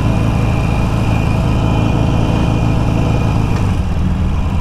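Harley-Davidson Iron 883's air-cooled V-twin engine running steadily at low throttle as the motorcycle rolls down a steep road.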